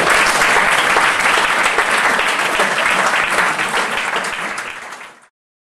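Audience applauding, a dense, steady clapping that fades over the last second and stops abruptly about five seconds in.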